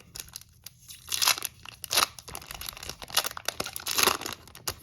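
Trading card pack wrapper crinkling and being torn open, an irregular run of crackles with several louder crunches.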